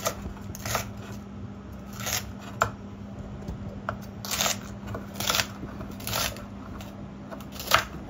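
Large kitchen knife slicing through a head of white cabbage on a wooden cutting board: about eight crisp cuts at uneven intervals, roughly one a second.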